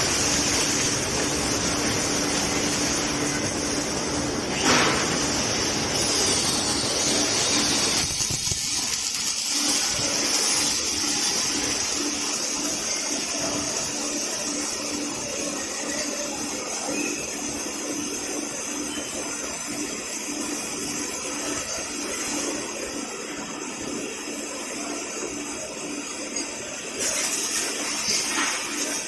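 Welding robot cell at work: a steady rushing hiss over a constant hum. There is a sharp click about five seconds in, and the sound thins out about eight seconds in.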